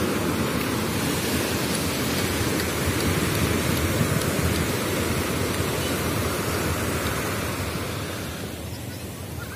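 Ocean surf breaking and washing up the sand: a steady rush of noise with a heavy low rumble, easing off slightly near the end.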